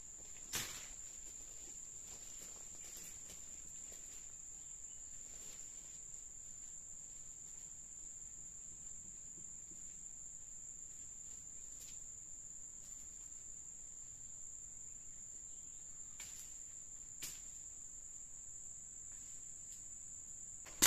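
Forest insects keeping up a steady, high-pitched drone, with a couple of faint short knocks.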